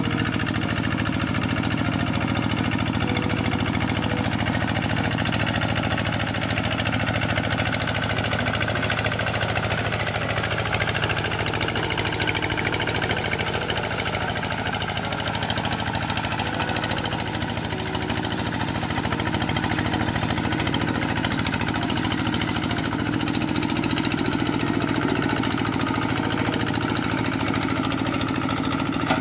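Two-wheel hand tractor's single-cylinder diesel engine running steadily with a rapid, even knock as the cage-wheeled tractor plows a flooded rice field.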